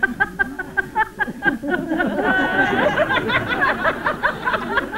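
Large studio audience laughing, many voices overlapping in quick pulses of laughter.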